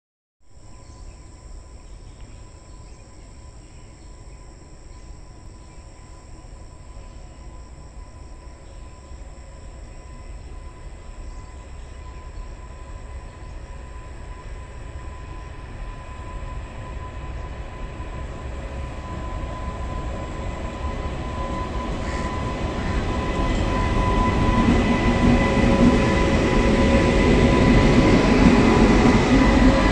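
Indian Railways WAG-9 electric locomotive running light, approaching and passing close: a rumble of wheels on rail that grows steadily louder, with a steady whine from the locomotive.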